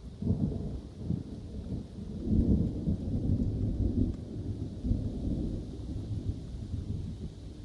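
Rolling thunder: a deep rumble that breaks in suddenly, swells to its loudest about two and a half seconds in, then slowly dies away, over a steady hiss of rain.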